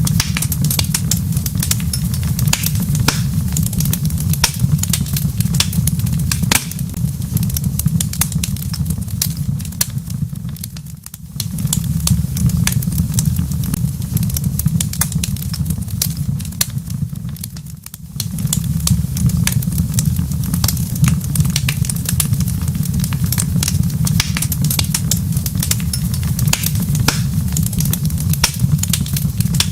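Wood fire crackling in a fireplace: many sharp pops and snaps over a steady low rumble. The sound dips briefly twice.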